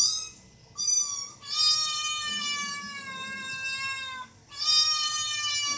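A cat meowing in long, high, drawn-out calls: a short one about a second in, then one of nearly three seconds that sags slightly in pitch, and another starting near the end.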